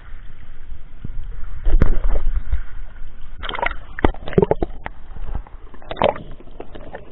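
Shallow water sloshing and splashing as a hand and a waterproof camera move through it at the surface, the sound going muffled as the camera dips under. A few sharp splashes and knocks come around two seconds in and between about three and a half and six seconds in.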